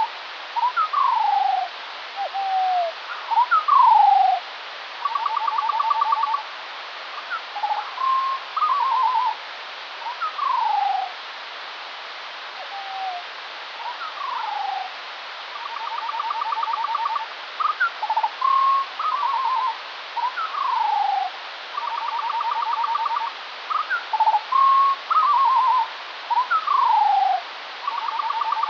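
Skylark song played back at quarter speed, so far lower and slower than in life: an unbroken stream of falling whistled slurs, short notes and rippling trills, with phrases that recur. It sounds like a modular synthesizer patch, over a steady hiss.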